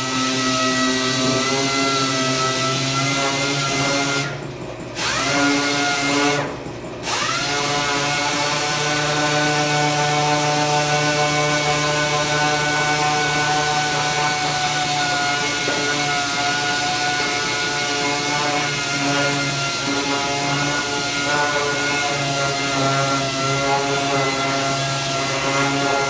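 Power tool motor running at a steady pitch. It cuts off briefly twice, about four and six seconds in, and spins back up each time.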